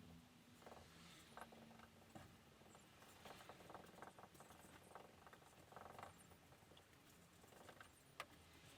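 Faint, scattered scraping and small clicks of epoxy putty being worked on with a filler spreader, busier about three to four seconds in, with one sharper click near the end.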